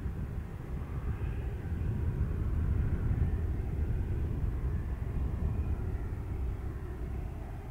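Airliner jet engines running at low power in the distance: a steady low rumble with a faint whine that drifts up and down in pitch.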